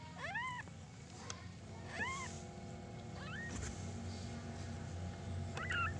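Newborn Persian kittens mewing: four short, high cries, each rising then falling in pitch.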